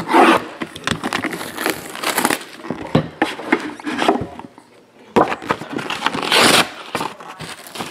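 Plastic shrink wrap on a sealed trading-card hobby box being slit with a box cutter, then torn and crumpled off in crinkling bursts, with a short pause about four and a half seconds in before a second burst.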